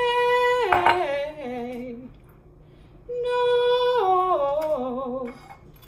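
A woman's voice singing a vocal warm-up exercise twice. Each time she holds a high note, then runs down the scale in small wavering steps. A light click comes about a second in.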